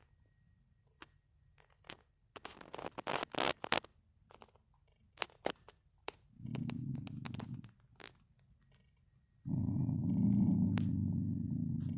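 A dog growling low in his throat, twice: a short rumble about six seconds in and a longer one of about three seconds near the end. Before that, a quick cluster of short, sharp rustling clicks.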